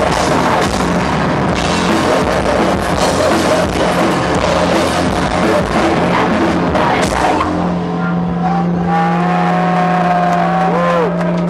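Metal band playing live, loud and full. About two-thirds of the way in the drums and dense playing stop, and a low held note and a few wavering guitar tones ring on as the final chord sustains.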